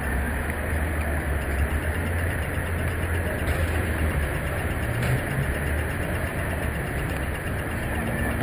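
City street traffic at a busy intersection: a steady low engine rumble over general street noise.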